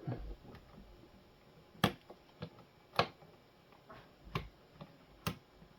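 Sharp clicks and light taps of hard plastic parts being handled inside a Delonghi coffee machine as the valve's hose clamp is seated and checked, four louder clicks roughly a second apart with fainter ones between.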